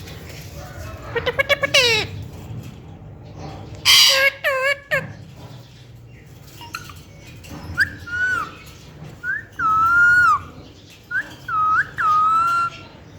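Green parrot calling: a quick run of sweeping notes, a loud harsh squawk about four seconds in, then several whistled calls that rise and fall in the last five seconds.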